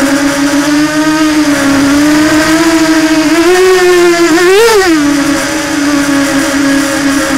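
An FPV drone's electric motors and propellers give a steady buzzing whine. About four and a half seconds in, the pitch swings up briefly and falls back as the throttle is pushed.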